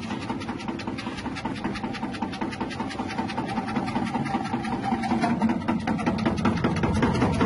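Electric chip-slicing machine running: its 180-watt electric motor hums steadily while the spinning blade slices vegetable pushed down the feed tube, with rapid close-set clicking.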